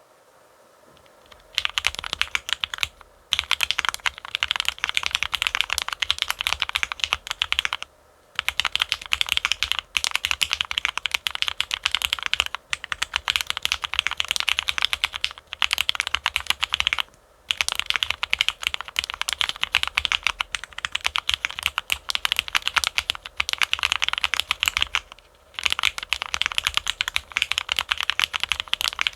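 Fast typing on a Neo65 mechanical keyboard with Gateron Milky Yellow linear switches: a dense clatter of keystrokes in long runs broken by short pauses, starting after a second or so.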